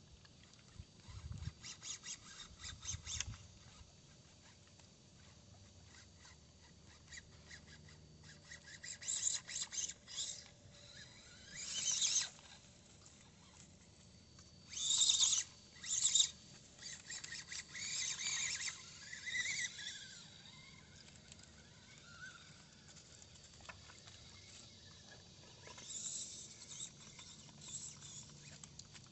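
Axial SCX24 Jeep Gladiator micro RC crawler driven in short stop-start bursts over rock and dry debris: its small motor and gears whirring, with its tyres scrabbling and crackling on twigs and grit.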